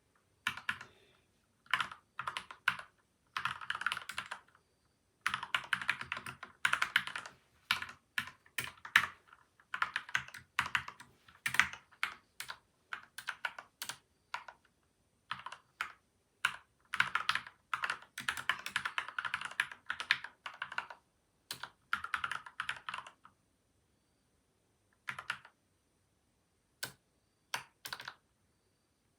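Typing on a PCL87 mechanical keyboard with lubed switches and stabilizers, dampened with tape and foam. Quick runs of keystrokes are broken by short pauses, with a gap of about two seconds past the middle and only a few single keystrokes near the end.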